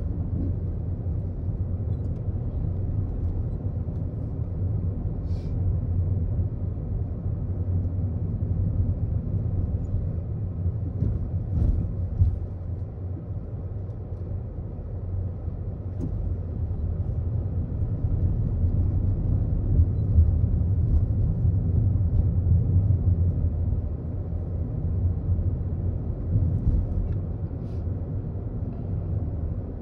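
Steady low rumble of a car driving at city speed: engine and road noise, with a few faint ticks.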